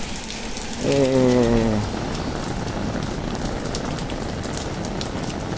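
Steady rain falling, with scattered drops ticking. About a second in, a man's voice holds one drawn-out, slightly falling sound for about a second.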